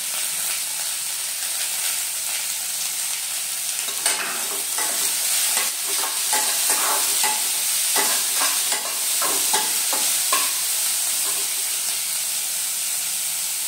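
Chopped carrot, capsicum and peas sizzling in oil in a metal kadai. From about four seconds in to about ten seconds in, a metal spatula stirs them, scraping and knocking against the pan.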